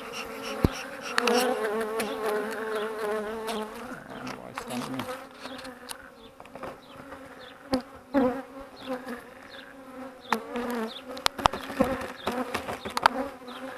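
Honey bees buzzing around an open hive, the hum wavering up and down in pitch as individual bees fly close past. A few sharp clicks come through, about a second in and again around eight and eleven seconds.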